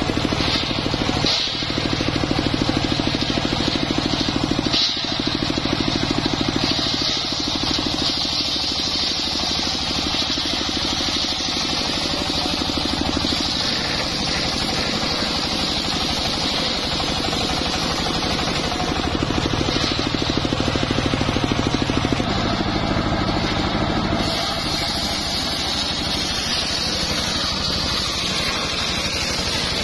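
Engine-driven homemade circular saw bench running steadily, its large blade ripping lengthwise through a log of jowar (johar) wood. The engine note under load is strongest in the first several seconds and again about two-thirds of the way through.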